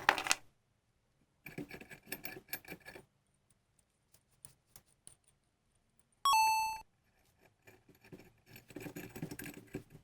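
Metal parts clinking and rattling in two bursts of quick clicks, with scattered single ticks between them. About six seconds in there is one sharp metallic ring that fades within half a second.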